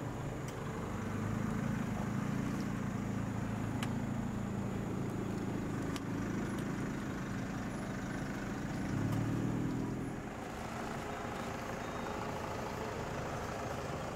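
Motor vehicle engine idling, a steady low hum that grows a little louder around nine seconds in and then eases.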